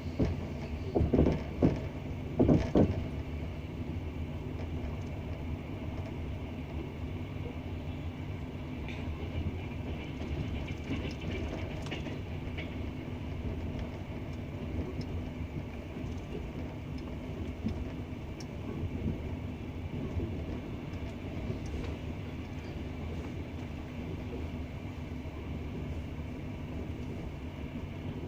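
Wheels of a double-decker passenger train running on the rails. There are several loud clattering knocks about one to three seconds in, then a steady rolling rumble with a few light clicks.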